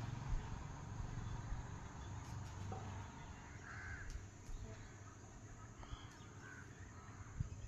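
A bird calling a few times, short calls, over a faint steady low hum that slowly fades.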